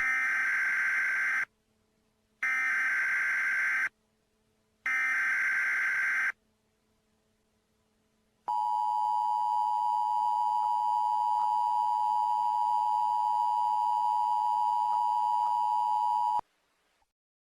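Emergency Alert System broadcast tones: three harsh data bursts of the SAME digital header, about a second apart, then the steady two-tone attention signal held for about eight seconds before cutting off. Together they mark the start of a new alert message.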